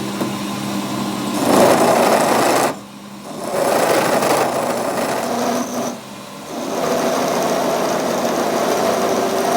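A workshop power tool running under load in three spells, dropping off briefly about three seconds in and again about six seconds in.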